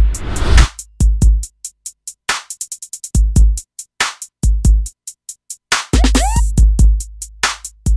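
Electronic music with a drum-machine beat: heavy, deep kick drums and bass with sharp clicking percussion between them, and a gliding synth sound about six seconds in.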